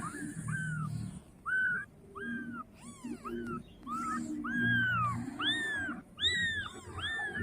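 Young kittens mewing over and over, short high rising-and-falling cries about two a second, some overlapping: kittens calling for their mother.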